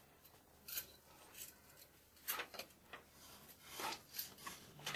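Faint handling noises: a few short rubs and clicks as a roller shade's plastic end tips are worked into the side track.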